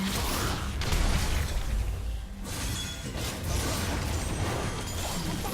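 Heavy, loud breathing close to the microphone, in uneven noisy surges with a strong low rumble.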